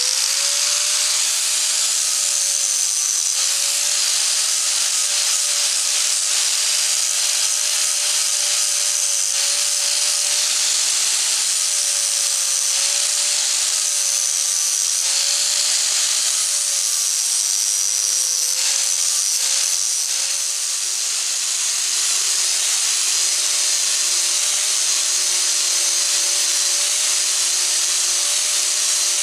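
Hand-held electric angle grinder running with a sanding disc, sanding the edges of small aluminium parts. A steady whine that wavers slightly as the work is pressed on, over a harsh high hiss of abrasive on metal.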